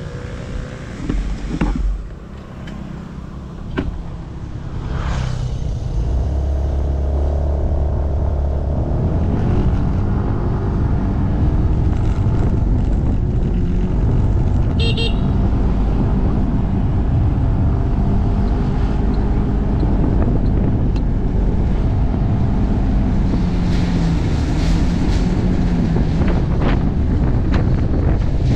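Motorcycle engine pulling away about six seconds in, then running steadily at road speed with wind on the microphone. A short horn beep sounds about halfway through.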